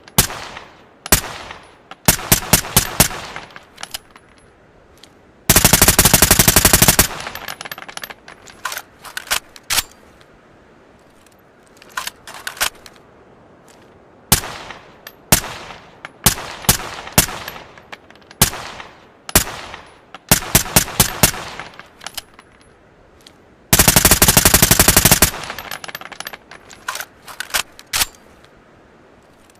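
ARN-180 assault rifle with a suppressor firing single shots and short rapid bursts, with two long full-auto bursts of about a second and a half each, one about five seconds in and one near 24 seconds.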